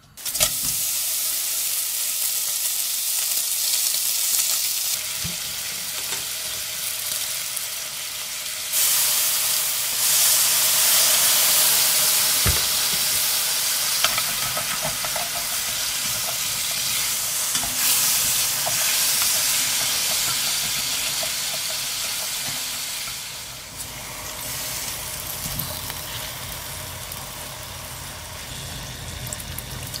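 Pork belly sizzling as it fries in a hot stainless steel pot, starting abruptly, with a wooden spatula stirring and scraping through it. The sizzle grows louder about nine seconds in and eases somewhat near the end.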